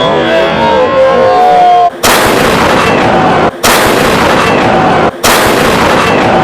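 Black powder cannon firing: a sudden, very loud blast that carries on as long noise, heard three times in a row about a second and a half apart, each cut off abruptly, like the same shot played over. Guitar music plays before the first blast.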